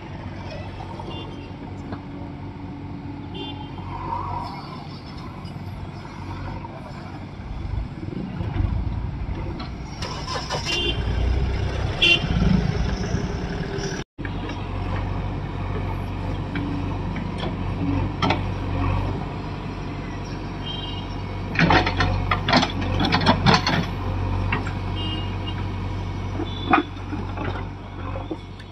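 JCB backhoe loader's diesel engine working under load while it digs soil, a steady low drone. Bursts of clanks and knocks from the digging arm and bucket come twice, the louder ones past the middle.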